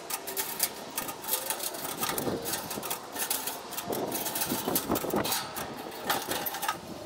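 Rapid clicking, knocking and clattering of gas grill parts being handled, with a few louder bursts of rattling.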